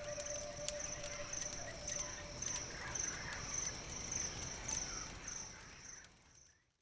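Crickets chirping steadily in a high, even pulse of about three chirps a second, with the occasional crackle and pop of a wood campfire. The sound fades out near the end.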